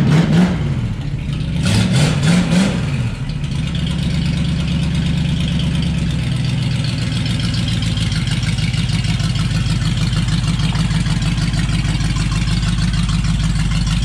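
AMC 290 V8 in a 1969 AMC Rebel, just started: revved twice, rising and falling, in the first three seconds, then settling into a steady idle.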